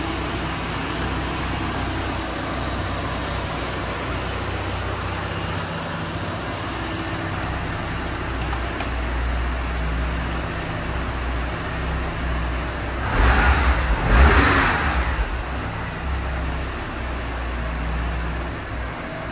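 Porsche 944 S2's 3.0-litre inline four-cylinder engine idling steadily while it warms up after a cold start, with two short blips of the throttle about two-thirds of the way through that fall back to idle.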